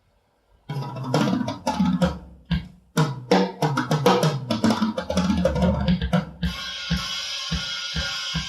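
Drum kit improvisation: after a brief silence, a fast run of drum hits across the kit, then about two-thirds of the way in a crash cymbal rings out over a few spaced kick and tom hits. The recording has been cleaned with noise reduction.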